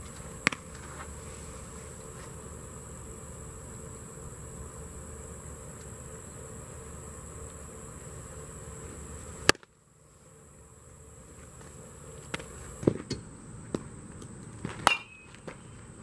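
Insects buzzing in a steady high drone, with a sharp crack about half a second in and a louder smack near the middle as a pitched baseball hits the catcher's mitt. After that the buzz drops away and a few sharp knocks follow near the end, one with a brief ring.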